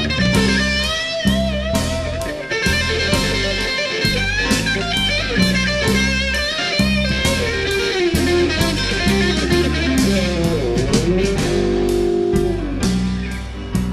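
Slow blues played live by an electric rock band: an electric lead guitar plays bent, wavering notes with vibrato, and holds one long note near the end, over bass guitar and drums.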